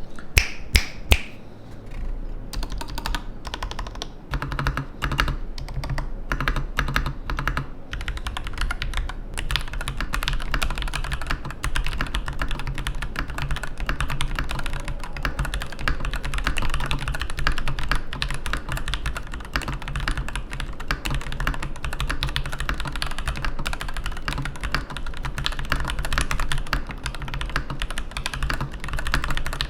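MiKit C96 mechanical keyboard with Gateron G Pro 2.0 switches and BBT double-shot keycaps being typed on. A few separate keystrokes come first, then about two seconds in a fast, continuous clatter of key presses begins and carries on.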